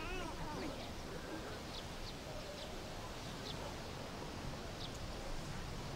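Outdoor background with a steady low hiss and short bird chirps scattered through it, several over a few seconds.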